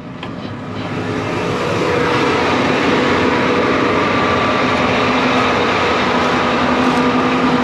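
John Deere 8R 370 tractor's diesel engine running steadily, heard close beside the tractor with its cab door open; it grows louder over the first two seconds, then holds a steady hum.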